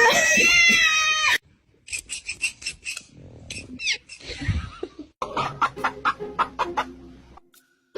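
An animal's drawn-out wavering cry for about the first second and a half, then, after a short pause, runs of short sharp calls and clicks with a few quick rising-and-falling notes.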